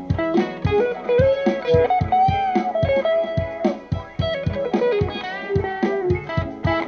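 Electric guitar played through a Zoom G3 multi-effects pedal, used as a looper: a looped phrase of single notes with string bends over a steady low beat.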